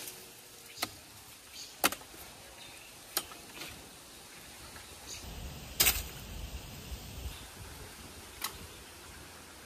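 Taro stalks being chopped with a blade: about five sharp snaps at uneven intervals, the loudest about six seconds in.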